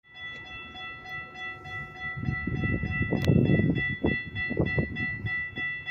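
Railroad grade-crossing warning bell ringing with rapid, even strokes about three a second while the crossing gate arm lowers. A low rumbling noise swells in the middle, with a sharp click a little after three seconds in.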